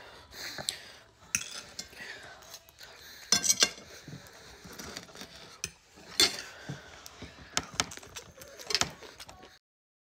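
Steel knife and fork clinking and scraping on a ceramic plate as bone-in steak is cut, in scattered sharp clicks and scrapes. The sound cuts off abruptly to silence near the end.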